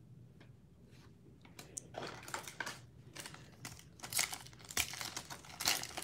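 Foil wrapper of a 2019-20 Panini Prizm basketball card pack crinkling as it is handled. It starts about two seconds in, with a few louder crackles toward the end.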